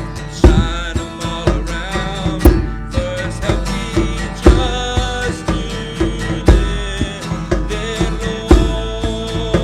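A worship song with guitar and a voice singing over a strong steady beat, about one beat a second.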